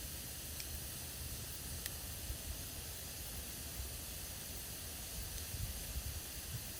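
Campfire burning with a steady hiss and a low rumble, with a couple of faint crackles and pops.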